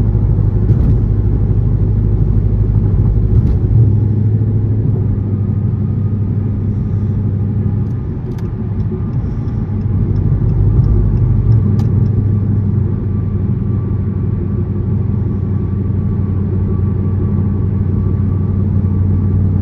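Dodge Charger R/T's 5.7-litre V8 with a catless, gutted exhaust, droning steadily at cruise as heard from inside the car. It eases off slightly about eight seconds in, then picks back up.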